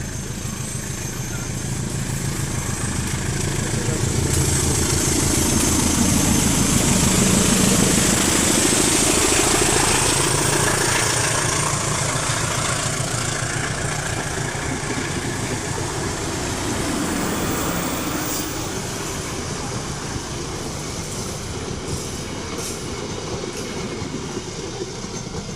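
A CC 201 diesel-electric locomotive passes at speed hauling a passenger train. Its engine hum grows louder to a peak about seven seconds in and drops in pitch as it goes by, followed by the steady rolling of the coaches' wheels on the rails.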